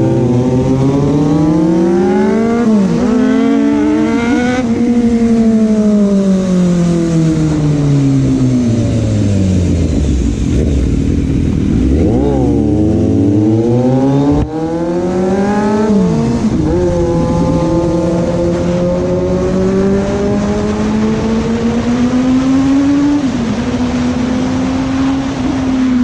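Inline-four sport motorcycle engine being ridden hard: it revs up through the gears with quick upshifts, rolls off and slows for several seconds mid-way, then pulls through the gears again and settles to a steady cruise near the end.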